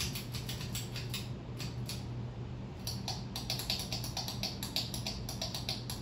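Harbor Breeze Pawtucket ceiling fan running at speed, its motor giving a steady low hum, with rapid, irregular light clicks over it that are densest in the second half.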